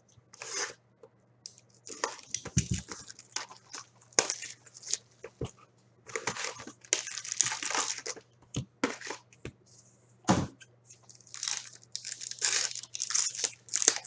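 Wrapping on hockey trading card packs being torn open and crinkled in irregular spells, with a few sharp taps in between.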